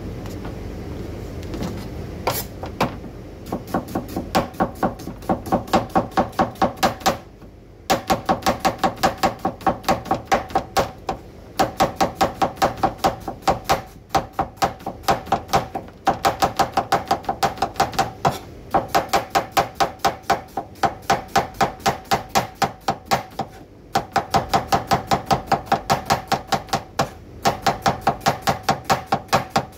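Cleaver slicing onions on a wooden chopping board: quick, even knocks of the blade on the board, about four to five a second, in runs broken by short pauses every few seconds, each knock with a short ring.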